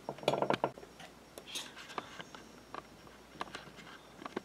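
Faint handling clicks and taps on a tabletop: a quick cluster of small clicks in the first second, then a few scattered single ticks.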